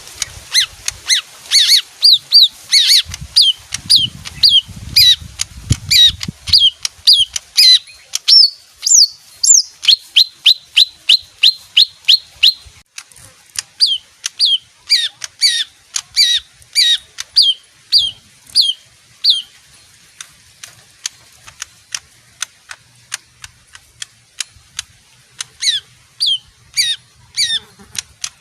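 A small green songbird calling in long runs of sharp, quickly falling whistled notes, about three a second. A few higher notes come near the middle, and there are short pauses. A low rumble sounds under the calls a few seconds in.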